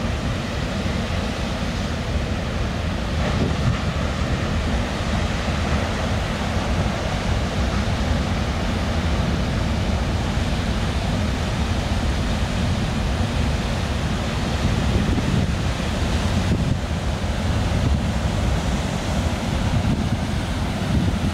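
Heavy ocean surf breaking steadily, with wind buffeting the microphone.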